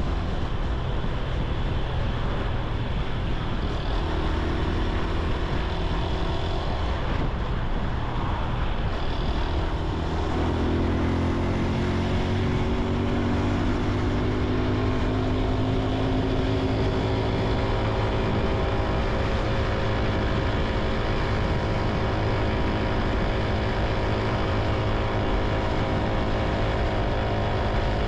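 Honda Super Cub C125's single-cylinder engine and exhaust running while the bike is ridden; about ten seconds in the engine note rises as it picks up speed, then holds steady.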